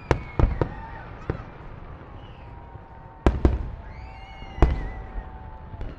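Aerial fireworks shells bursting: a quick run of sharp bangs in the first second and a half, then louder booms about three and a half seconds in and the loudest shortly before the end.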